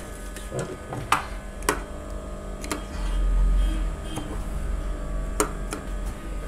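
Scattered sharp clicks and light handling noise as a sewn seam is drawn off an industrial sewing machine and its thread is snipped with scissors, over a low steady hum that swells for about a second midway.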